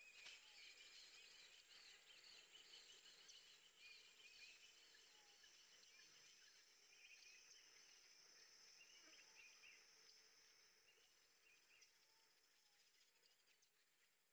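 Near silence with faint outdoor chirping of insects and small birds, with a thin high insect trill and scattered short chirps, fading towards the end.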